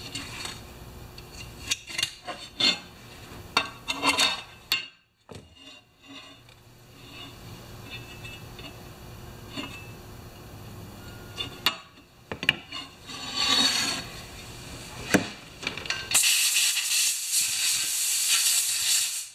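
Small metal tools and a chainsaw guide bar clicking and scraping on a steel bench. About three seconds from the end, a compressed-air blow gun starts a loud, steady hiss of air that runs on.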